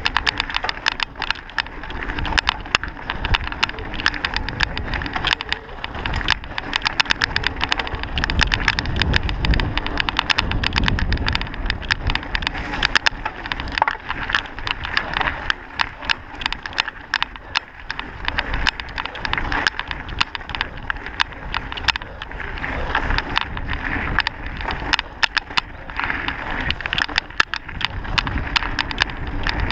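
Mountain bike riding fast over a rough dirt and gravel trail: tyres running on the ground with dense, continuous rattling and knocking from the bike over stones and roots. A low rumble swells about 8 to 12 seconds in.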